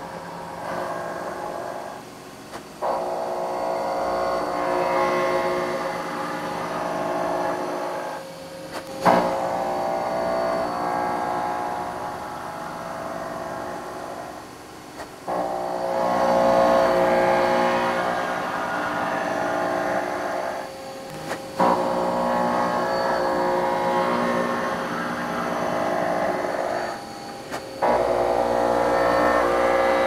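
CNC milling machine cutting a part held in a vise: a steady multi-tone cutting whine from the spindle and cutter that drops away briefly five times, about every six seconds, as the tool comes off one pass and starts the next.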